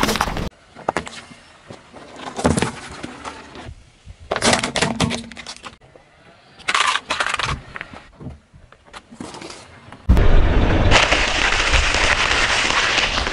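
A car tyre rolling over and crushing a run of objects. First come scattered sharp cracks and snaps, as from a small plastic toy truck breaking. From about ten seconds in there is a long, loud crunching as stacks of puffed rice cakes break under the tyre.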